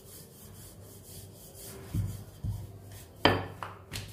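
Wooden rolling pin rolling out a floured dough sheet on a countertop: soft rubbing strokes, two dull knocks about two seconds in, then one sharp clack a little after three seconds, followed by a few lighter taps, as the pin is set down on the counter.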